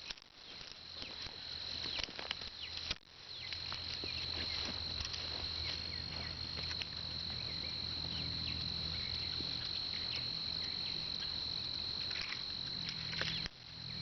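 A steady high insect trill runs throughout, with scattered light clicks and rustles.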